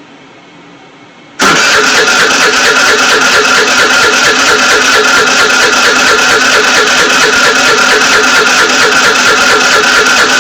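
Scooter's electric starter cranking the engine. It kicks in suddenly about a second and a half in and turns over steadily with a fast, even chugging over a constant whine. The engine does not catch.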